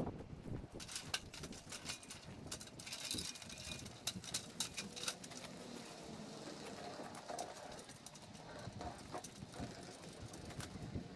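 Scattered light clicks and knocks from an aluminium ladder being set against a tree and climbed, with faint bird calls in the background.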